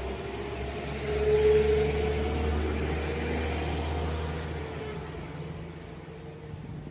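Two coupled Class 172 Turbostar diesel multiple units pulling away, their underfloor diesel engines giving a steady low hum with a held higher tone. The sound swells about a second and a half in, then fades away over the last few seconds as the units leave.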